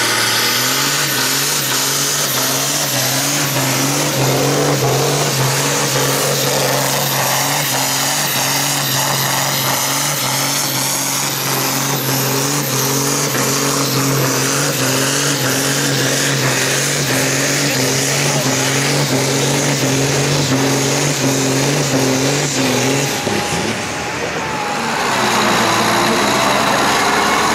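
Diesel tractor engine running flat out at steady high revs while pulling a weighted brake sled. About 23 seconds in, the steady note breaks off and a different engine sound takes over.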